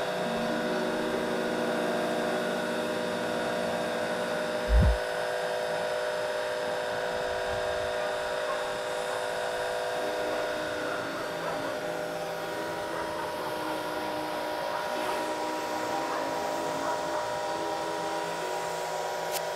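Pressure washer running steadily, its water jet spraying and rinsing foam off a car's engine bay. A single low thump comes about five seconds in.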